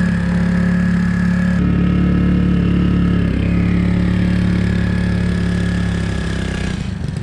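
Small outboard motor running steadily, driving an inflatable boat along at speed across the lake.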